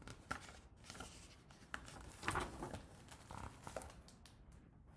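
Faint rustling and light clicks of paper as a large picture book's page is turned and the open book is handled.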